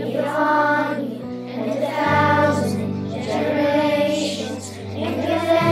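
Children's virtual choir singing the lyric "may His favour be upon you, and a thousand generations" over a sustained instrumental accompaniment, whose low held notes change about two seconds in and again near the end.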